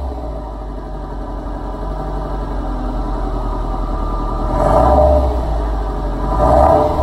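Exhaust of a Subaru Legacy Spec B's 2.5-litre turbocharged boxer four, fitted with aftermarket downpipe, headers and a resonator delete, idling steadily. It rises briefly twice, once near the middle and once near the end.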